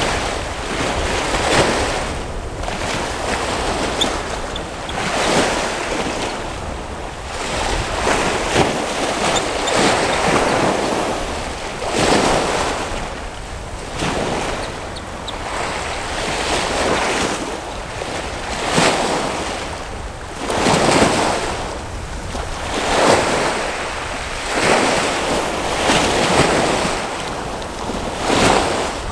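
Small sea waves breaking and washing onto a stony shore, surging every second or two, with some wind on the microphone.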